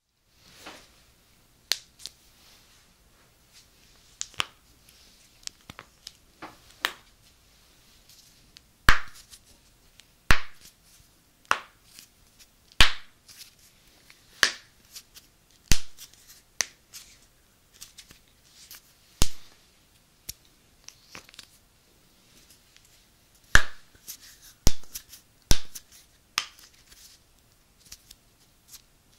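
Finger and knuckle joints cracking close to a binaural microphone: sharp single pops, a loud one every second or two, with quieter clicks between.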